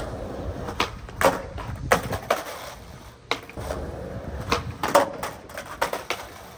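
Skateboard wheels rolling over rough, gritty asphalt, with a series of sharp clacks and knocks from the board.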